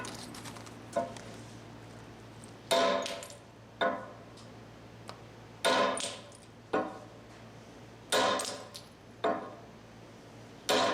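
Hammer blows on a steel stone-working tool against limestone, sharp ringing metal clanks. They come in pairs, a hard strike followed by a lighter one about a second later, about every two and a half seconds.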